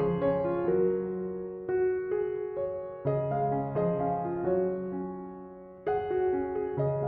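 Background music: a slow, gentle piano piece, chords struck every second or two and left to ring and fade.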